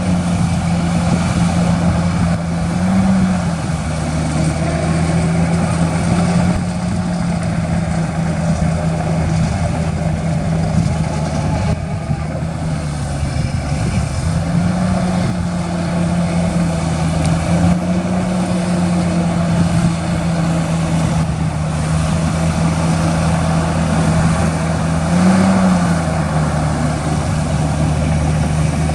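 Heavy diesel engine of earthmoving machinery running steadily under load, its pitch rising briefly twice, about three seconds in and near the end, and dropping for a moment around the middle.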